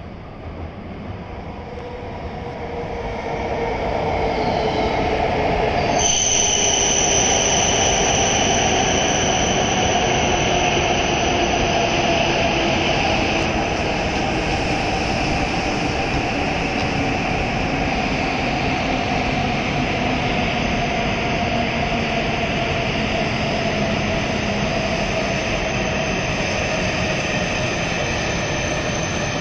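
E7 series Shinkansen train pulling into the platform and braking: its rushing noise swells over the first few seconds, then holds steady with a motor whine that falls slowly in pitch as the train slows. A high, steady whistle sets in about six seconds in.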